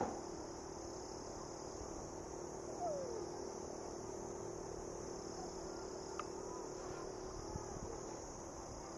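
Steady high-pitched insect chirring over a faint steady low hum, with a short falling call about three seconds in and a faint click about six seconds in.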